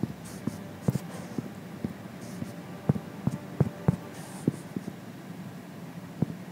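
Typing on an iPad's on-screen keyboard: about a dozen short, irregular taps of fingertips on the glass screen, roughly two to three a second with small pauses between words.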